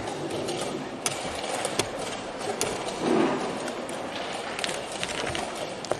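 Irregular sharp clicks and knocks of wooden chess pieces and a chess clock, over a steady background noise of the playing hall.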